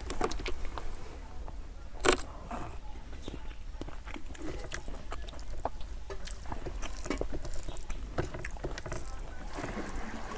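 Close-up eating sounds: a hand squishing and mixing rice and curry on a steel plate, and mouth smacks while chewing, as many small irregular clicks. A sharper, louder click comes about two seconds in, over a steady low hum.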